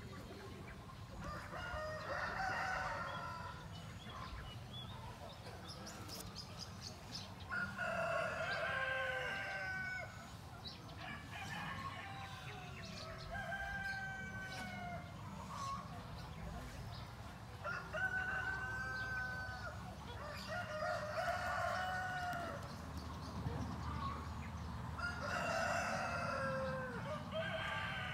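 A rooster crowing about six times, each crow lasting a second or two, over a steady low rumble.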